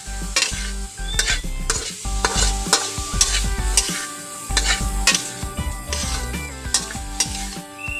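Metal spatula scraping and tapping against a wok about twice a second while ant eggs sizzle as they are stir-fried.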